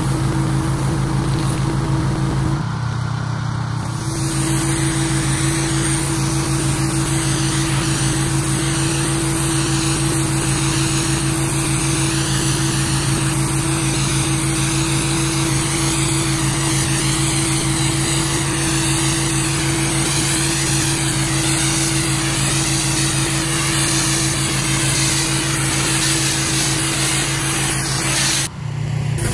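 Gas-engine pressure washer running steadily, with the hiss of high-pressure water spraying onto concrete. The engine hum and spray change briefly about three seconds in and again just before the end.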